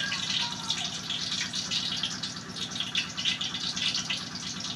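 Battered squid rings (calamares) frying in hot oil in a wok: a continuous sizzle with irregular crackling.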